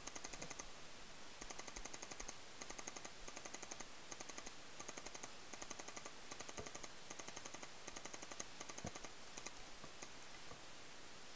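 Paintball markers firing in rapid bursts, burst after burst about once a second, each a quick string of shots.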